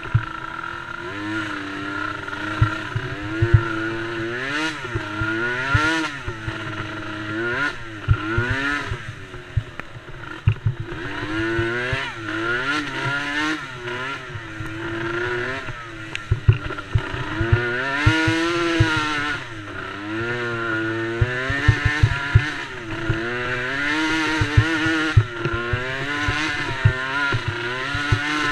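Small 90cc youth ATV engines racing, revving up and falling back every second or two, with more than one engine heard at times. Irregular low thumps run underneath.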